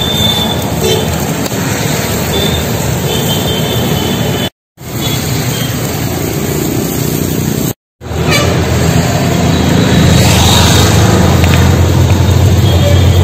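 Road traffic noise, steady and loud, broken by two brief complete dropouts. From about two-thirds of the way in, a low engine hum grows louder, as a heavy vehicle idles close by or approaches.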